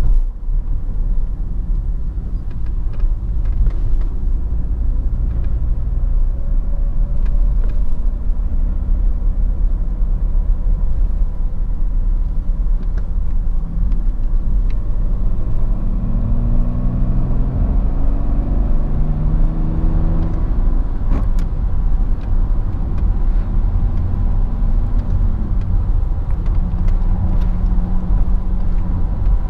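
In-cabin sound of a BMW 530d E39's 3.0-litre straight-six turbodiesel driving along, with a steady low road and tyre rumble. About halfway through, the engine note climbs in a few short rises as the car picks up speed.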